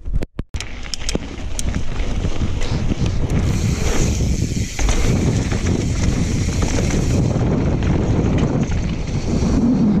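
Wind rushing over an action camera's microphone with mountain bike tyres rumbling on a dirt trail as the bike gets up to speed downhill, steady after the first second or so. A few sharp clicks at the very start.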